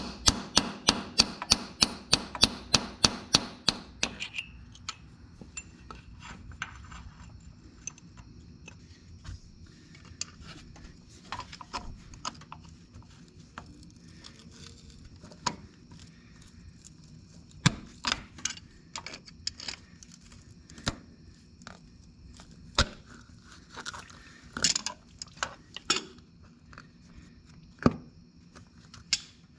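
Hand tools working on a tractor's brake actuator linkage. For about four seconds there is rapid, even metal clicking, about three clicks a second, then scattered metallic clinks and knocks.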